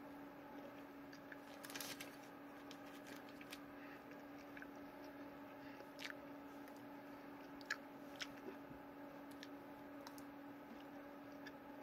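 A person biting and chewing a meat stick: faint, scattered mouth clicks and smacks over a steady low hum.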